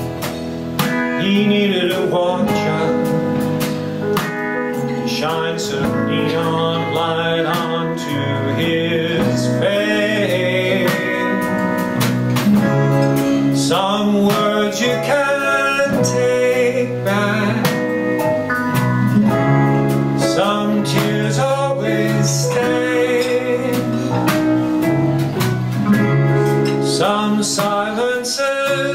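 Live band performing a song: a man singing over strummed acoustic guitar, backed by piano, electric guitar, bass and drums.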